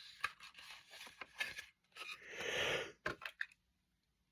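Light clicks and scrapes of cassette cases and packaging being handled, with a breathy yawn lasting under a second about two seconds in.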